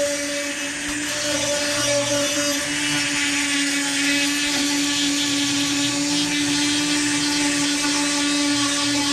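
Dremel rotary tool with a sanding drum running at a steady high speed, sanding the cut edge of an opening in a gel-coated boat console: a constant whine over a gritty sanding hiss.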